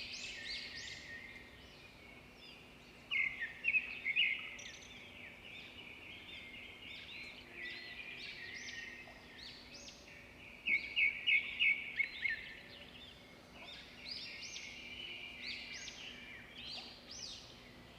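Many small birds chirping and twittering, with two louder runs of quick repeated notes, about three seconds in and again around eleven seconds. A faint steady hum runs underneath.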